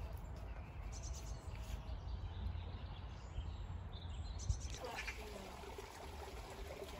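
Wind rumbling on the microphone with faint birdsong; from about five seconds in, a small stream trickling.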